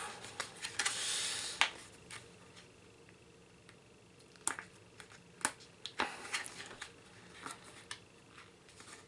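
Plastic whisky sample pouch being handled as its seal is pulled off: crinkling about a second in, then a few scattered sharp clicks and taps.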